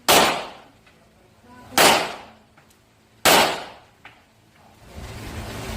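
Rock Island Armory Tac Ultra FS HC pistol firing three single shots about one and a half seconds apart, each sharp crack dying away over about half a second. A steady noise rises near the end.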